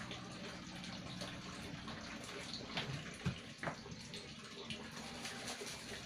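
Water splashing and sloshing as empty plastic bottles are rinsed by hand in a basin, with a few knocks of the bottles around the middle.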